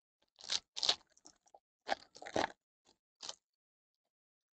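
Foil wrapper of a Panini Classics football card pack being torn open and crinkled, in about five short crackling bursts over the first three and a half seconds.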